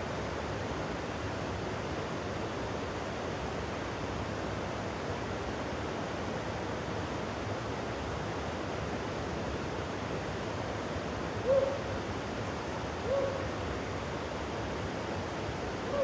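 Steady rushing of a shallow river in the rain. Near the end come three short pitched calls, each slightly falling, about a second and a half apart.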